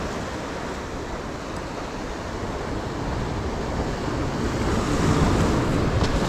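Ocean surf washing and breaking against shoreline rocks, with wind on the microphone, swelling louder in the second half.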